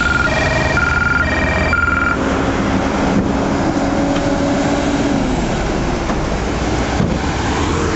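Steady roar of interstate traffic, with a heavy truck's engine drone sinking in pitch as it goes past from about two to five seconds in. Over the first two seconds an electronic warning tone alternates between a high and a low note, about two changes a second.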